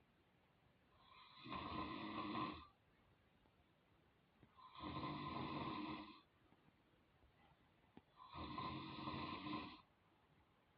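A person snoring: three long snores, each about a second and a half, coming about every three and a half seconds with quiet breathing pauses between them.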